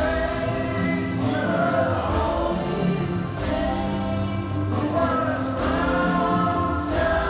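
Live rock band playing sustained chords under layered sung vocals, heard from the audience in a large, reverberant arena.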